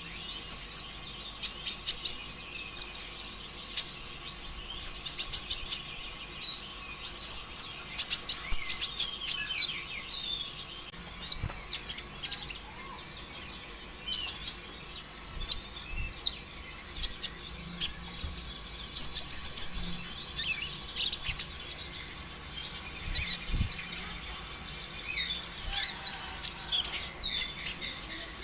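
Konin ijoan (kolibri ninja), a green-backed sunbird, singing nonstop in the fast, erratic 'konslet' style. It gives sharp high chirps and quick trills in rapid bursts.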